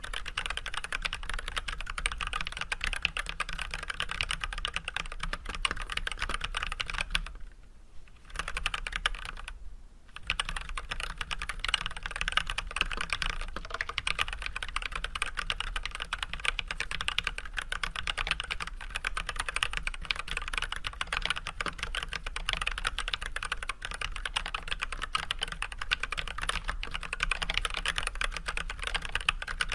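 Steady typing on an Archon AK87 hot-swap mechanical keyboard fitted with filmed, unlubed Everglide Red 67g linear switches and white PBT keycaps: a dense, continuous run of keystroke clacks. Two short lulls come about seven and nine and a half seconds in.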